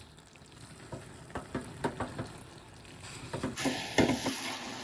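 Spoon scraping and knocking in a pan as spices are stirred into mallow leaves frying in oil. About three and a half seconds in, the sizzling gets louder.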